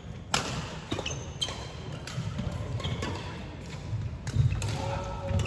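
Badminton rally: sharp racket hits on a shuttlecock about a second apart, with short squeaks of court shoes on the wooden floor, over a steady low hum of the hall.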